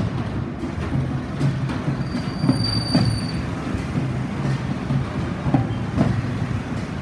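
Street traffic with motorcycles passing, a steady low engine hum. A brief high-pitched squeal lasts about a second, a little past the middle.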